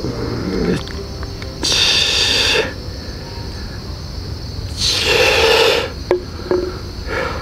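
Beer poured from a can into a tall glass, splashing and fizzing in two noisy spells, then a light clink of the can against the glass about six seconds in as a toast. Insects drone steadily throughout.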